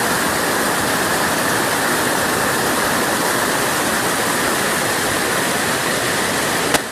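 Waterfall rushing with a loud, steady roar of falling water. Just before the end there is a sharp click and the sound drops away suddenly.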